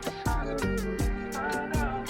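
Background music: an upbeat track with plucked guitar and a steady beat of about three to four hits a second.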